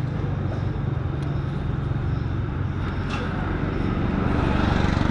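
A motorcycle engine idling close by, running steadily, with street traffic noise getting a little louder near the end.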